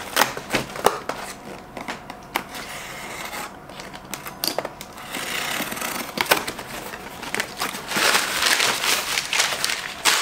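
A cardboard shipping box being cut open with a box cutter, with scattered sharp clicks and scrapes. From about two seconds before the end, a louder, denser crinkling of crumpled brown packing paper being pulled out of the box.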